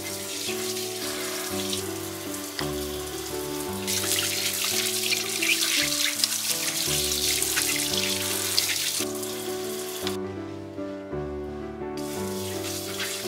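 Kitchen tap running into a stainless steel sink as hands rinse an ear of corn under the stream, with gentle background music. The water splashes heavier from about four seconds in, stops about ten seconds in, and starts again near the end.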